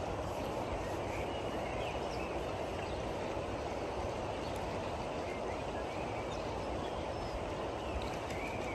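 Steady, low outdoor background noise with a few faint, short bird chirps scattered through it.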